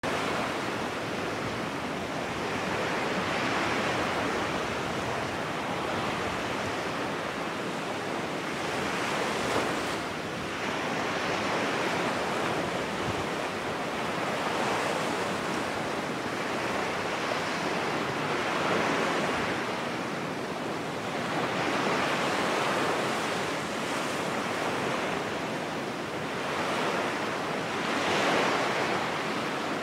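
Steady rushing surf-like noise, like ocean waves, swelling and easing every few seconds.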